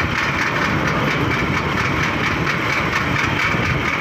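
Motorcycle engine running steadily under way, heard from the passenger's seat close by, with road and wind rush mixed in.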